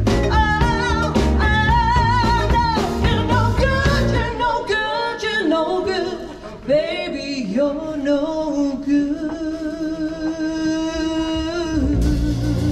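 Live pop-soul song: a female singer with acoustic-style instrumental backing. Midway the low backing thins out while she holds a long note with vibrato, and the full accompaniment comes back in near the end.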